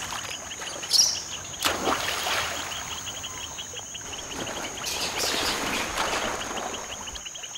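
Insects chirping steadily, a high continuous buzz over a fast pulsing chirp, with a few brief splashes of water from rhesus macaques swimming and wading.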